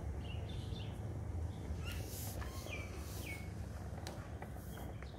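Small birds chirping in the background: several short, falling chirps. They sound over a steady low rumble.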